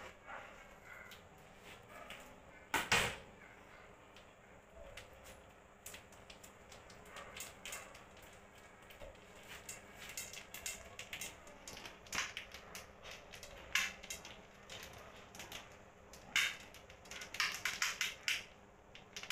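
Kitchen handling noises around an aluminium pressure cooker: scattered clicks and plastic-packet rustles, with one loud knock about three seconds in. Near the end comes a quick run of small clicks as small pieces drop into the metal pot.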